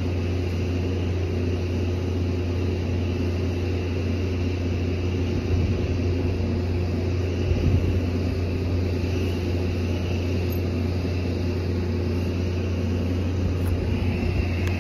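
A large engine running steadily at idle, a low, even drone throughout, with a couple of brief knocks near the middle.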